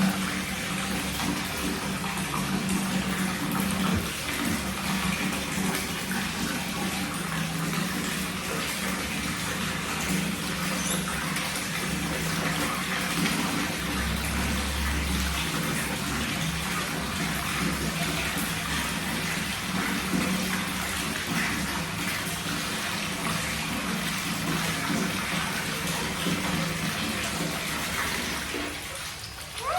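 Water running steadily from a tap and splashing, easing off near the end.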